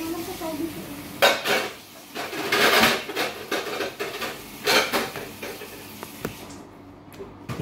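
Metal spoon scraping and clinking against a plate while scooping up rice and egg: three separate scrapes, the longest about halfway through.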